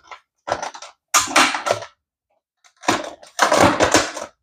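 Plastic lid of a Ninja food processor being pressed and twisted down onto its pitcher to reseat it, giving three bursts of plastic scraping and clicking.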